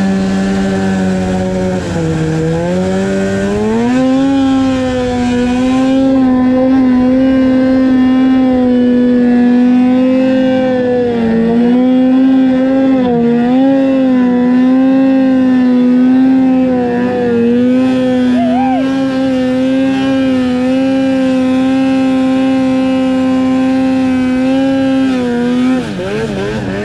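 Snowmobile engine running at high, steady revs under load as the sled climbs a snow slope. Its pitch rises about three seconds in, dips briefly a few times, and falls away near the end as the throttle comes off.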